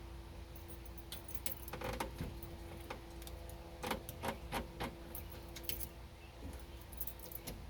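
A key ring jangling, with irregular sharp metallic clicks, as a key and new ignition lock cylinder are pushed and worked into a truck's steering column. The cylinder is not seating, so it only bends a part.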